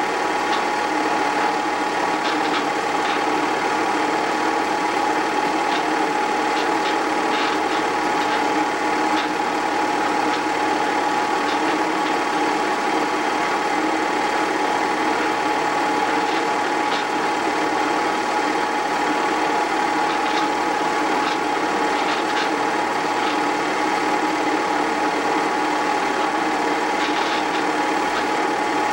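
8mm movie projector running: a steady mechanical whir with a constant tone and scattered faint ticks from the film transport.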